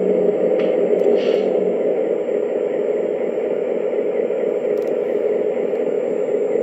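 Lionel Legacy NW2 model diesel switcher's onboard sound system playing a steady diesel idle, with a short hiss about a second in.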